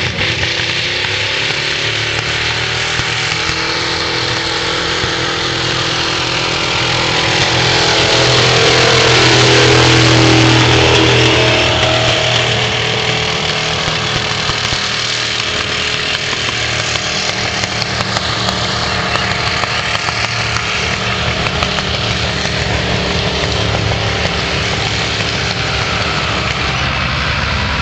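Pulling tractor's engine running hard under full load as it drags a weight-transfer sled, getting louder as it passes close about ten seconds in, its pitch dropping as it goes by, then steady again as it moves away.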